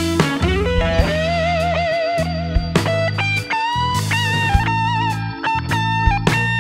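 Background music: an electric guitar lead playing long held notes with vibrato and pitch bends, over bass and drums.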